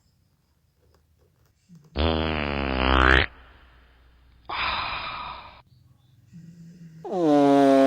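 Fart noises: a loud buzzing, pitched fart about two seconds in, a shorter hissing one about four and a half seconds in, and another long, steady buzzing one starting near the end.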